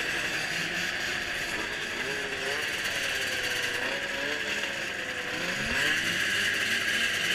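Snowmobile engines running and revving, their pitch wavering slowly up and down over a steady hiss.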